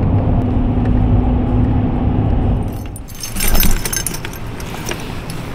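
Steady road noise and engine hum inside a moving vehicle's cab. About three seconds in it gives way to a run of metallic jingling and clinking as musky lures, with their treble hooks and wire hardware, are handled.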